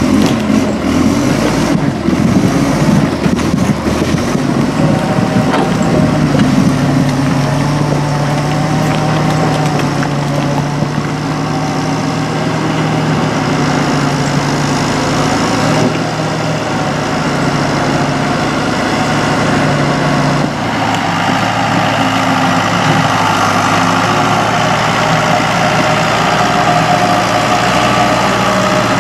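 A heavy vehicle's engine running steadily at low revs, its pitch shifting slightly now and then.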